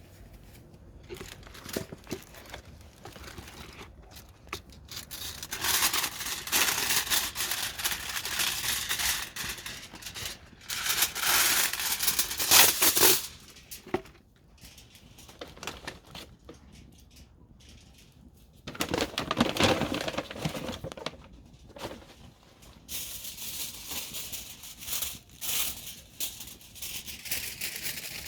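Wood campfire crackling, with dense small pops and snaps that come in uneven surges, louder for several seconds at a time and then quieter.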